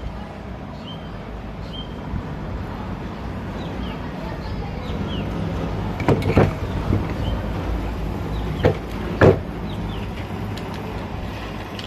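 Knocks and clicks of ceiling fan parts being fitted back together after a bearing replacement: a couple of sharp knocks just after the middle and two more a few seconds later, over a steady low background hum.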